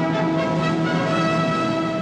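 Orchestral soundtrack music with brass holding sustained chords.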